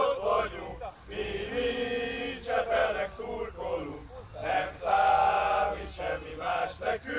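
A small group of male football supporters chanting in unison, in short sung phrases that break off and start again.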